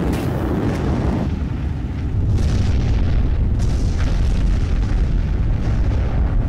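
Saturn V rocket launch roar from the five F-1 engines of the first stage: a deep, steady rumble with sharp crackles through it. The rumble gets heavier and louder about two seconds in.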